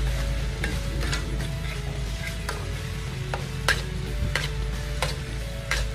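Long metal spatula scraping and clinking against a steel wok as a spiced mixture is stir-fried. It strikes in irregular strokes about every half second to second, the sharpest clink a little past halfway.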